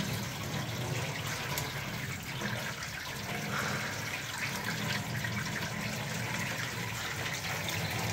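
Water from a garden hose running steadily over the roof and along a newly fitted metal rain gutter, a flow test of the gutter, which drips a little at a joint.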